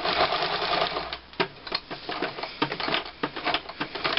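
Electric sewing machine with a piping foot stitching piping onto a cushion cover, running steadily for about the first second. It then slows into a series of separate sharp clicks as it nears a corner.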